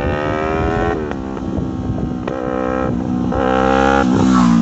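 Yamaha MT-03 motorcycle with a loud aftermarket exhaust accelerating, the engine note climbing and dropping back at each upshift, with a couple of sharp exhaust pops.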